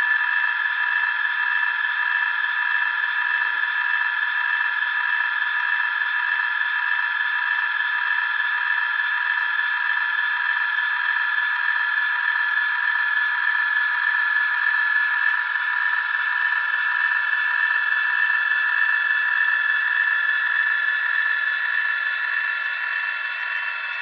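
Model locomotive sound decoder playing an EMD 645 diesel prime mover, running steadily at low throttle through the model's small onboard speaker. It sounds tinny, with no bass and a steady whine, and fades a little near the end as the locomotive moves away.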